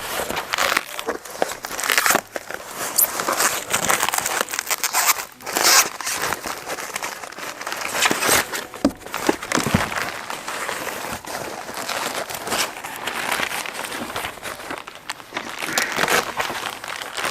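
Packing wrapping being pulled off and crumpled by hand, a steady irregular crinkling and rustling with louder tearing scrunches.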